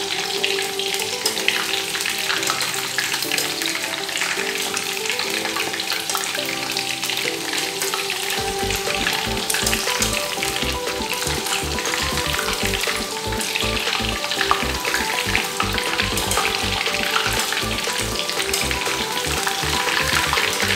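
Battered chicken pieces deep-frying in hot oil in a kadai: a steady, dense crackling sizzle as a steel skimmer turns the pieces in the oil.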